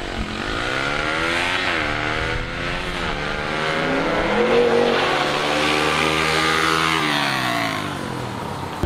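A Yamaha TT-R125 single-cylinder dirt bike and a 2006 Mustang GT V8 accelerating hard side by side in a drag race. The engine pitch climbs, drops back at each gearshift and climbs again several times.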